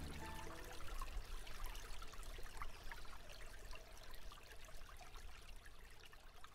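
Faint steady trickling and splashing of water, fading out near the end.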